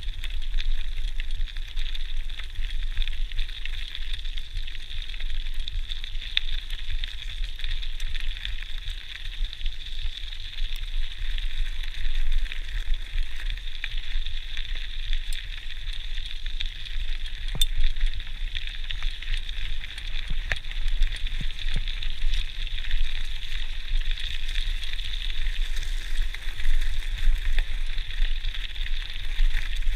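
GT Outpost Trail mountain bike rolling along a gravel forest track: a steady crackling tyre noise over a low rumble, with scattered small clicks and rattles.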